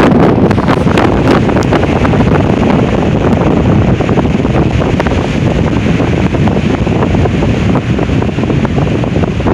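Strong, gusting wind buffeting the microphone, a loud, steady rush of wind noise with small crackles through it.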